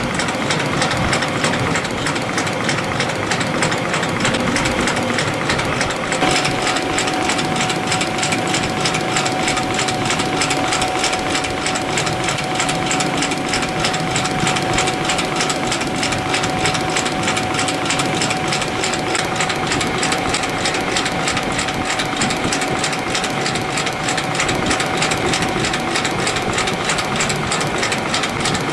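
YHM CF-310 CNC compression spring coiling machine running continuously, coiling springs from 0.2 mm wire with a fast, even ticking rhythm. A steady tone joins the running sound about six seconds in.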